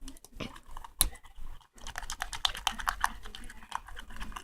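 A utensil stirring thick silicone slime mix in a bowl: rapid sticky clicks and taps against the bowl, sparse at first with one louder knock about a second in, then coming thick and fast.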